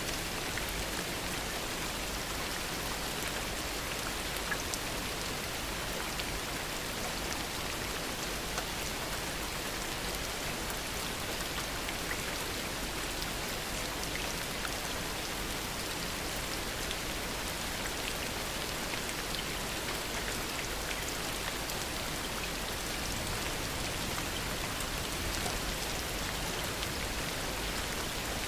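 Steady heavy rain falling, a dense even hiss with many fine drop ticks and no thunder.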